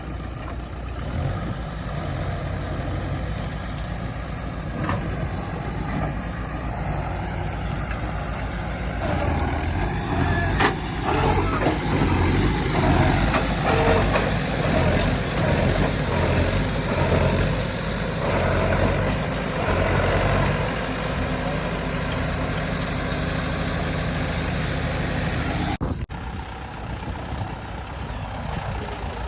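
Diesel engine of heavy farm or earthmoving machinery running steadily, getting louder and busier for several seconds in the middle as it works, with an abrupt cut near the end.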